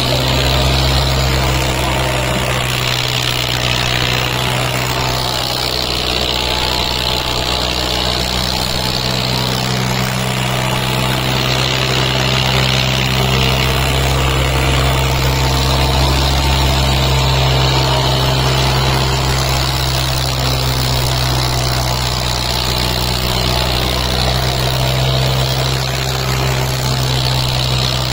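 Diesel tractor engines, a Kubota among them, running flat out and steady under heavy load as two tractors hitched back to back pull against each other in a tug-of-war. The pitch holds with no revving or let-up.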